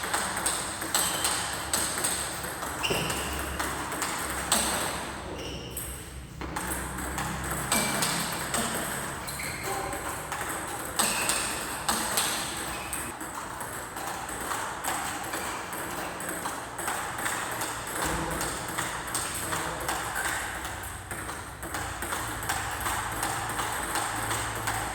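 A racket-sport rally in practice: a fast run of sharp hits and bounces, one after another, over a steady high-pitched whine and some background talk.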